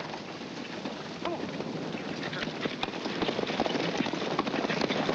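Hoofbeats of several horses galloping together on hard ground, a dense clatter of overlapping strikes that grows louder toward the end.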